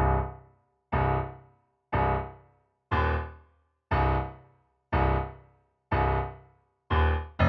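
Closing music: a keyboard chord struck about once a second, eight times, each one dying away before the next.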